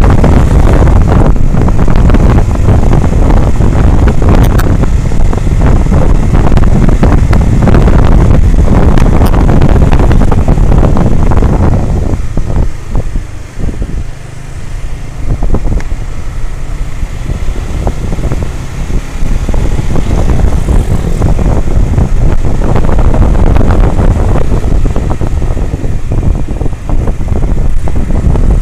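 Honda CBR150R single-cylinder motorcycle engine running under way, with heavy wind rush on the action camera's microphone. The wind and engine ease for a few seconds about halfway through as the bike slows, then build again.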